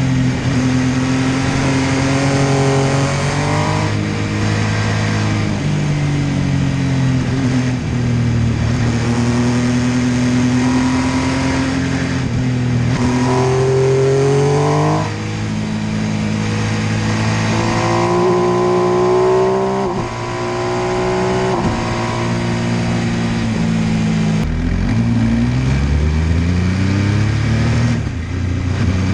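MV Agusta F3 800's three-cylinder engine pulling up through the gears and easing off, its pitch rising and then dropping at each shift. Near the end it falls low and climbs steeply again as the bike accelerates hard.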